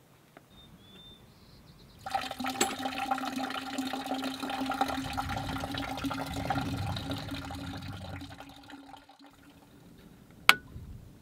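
Water running and splashing over a steady hum. It starts about two seconds in and dies away after about seven seconds, and a single sharp click follows near the end.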